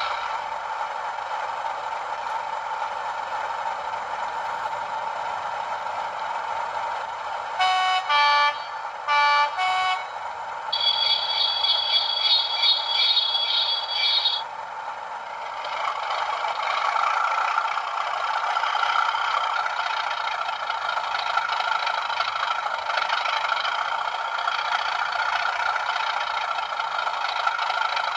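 Hornby TTS sound decoder playing a Class 37 diesel engine through a small phone speaker, thin with no bass. The engine runs steadily, then the two-tone horn sounds in four short blasts, alternating high and low, about 8 seconds in. A rapid pulsing high tone follows, and from about 16 seconds in the engine note rises as the locomotive powers up.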